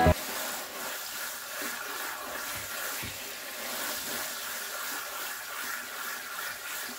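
Water spraying from a hose nozzle onto compost in a mesh strainer basket, a steady hiss of spray and splashing. The compost is being rinsed through the screen to make a compost extract.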